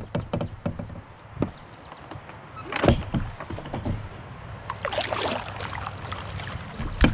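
Kayak on the water: paddle strokes splashing, with scattered knocks and clunks against the hull. The louder splashing comes about three and five seconds in.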